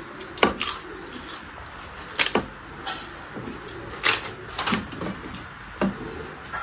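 Crisp fried papad crunching as it is broken and eaten, with sharp cracks every second or so.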